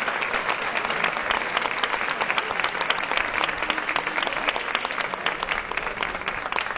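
Crowd applauding, a dense, steady clatter of many hands clapping.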